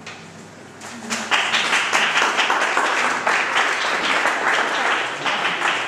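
Soft acoustic guitar notes, then an audience breaks into sustained applause about a second in.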